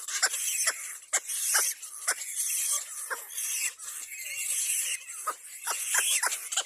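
Little black cormorant chicks squealing in the nest: short, sharply falling calls about two a second, over a steady high hiss.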